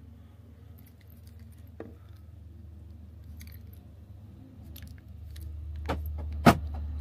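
A bunch of car keys with a remote fob jangling and clinking as it is handled, with a sharp click near the end, over a steady low hum.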